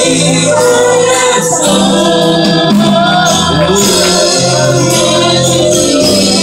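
Live church worship music: a group of singers over keyboards and a bass line, with a steady rhythmic high-pitched percussion beat.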